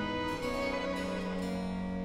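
Instrumental background music: calm, sustained notes held and changing at an even pace, with no tool sounds standing out.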